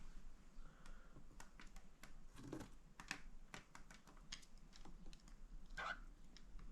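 Cockatiels moving about in a cardboard nest box: faint, irregular tapping and scratching of claws and beaks on the cardboard.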